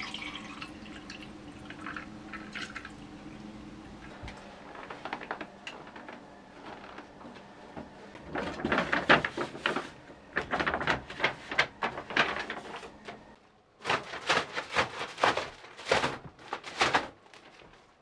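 Water poured from a plastic bottle into a paper cup, trickling and dripping, close-miked. About eight seconds in, a kraft paper shopping bag is rustled and crumpled in two runs of dense crackling, with a short pause between them.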